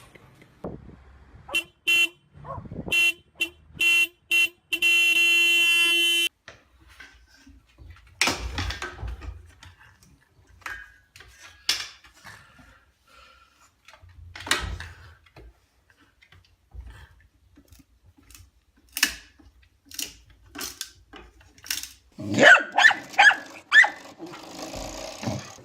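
A horn honks in several short toots, then one long blast. Scattered knocks follow, and near the end a dog barks rapidly.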